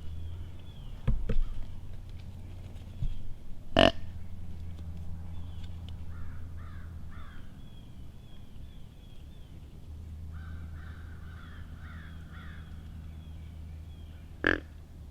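A crow cawing: a single short caw about four seconds in and another near the end, with softer chirps of small birds in between.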